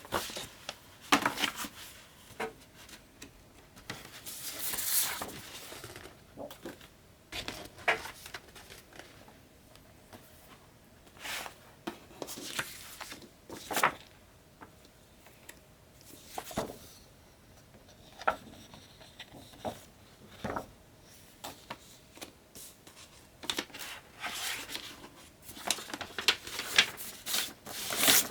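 Hands handling and unwrapping a vinyl record's packaging: on-and-off rustling and crinkling with light taps and clicks, with longer rustling stretches about four seconds in and near the end.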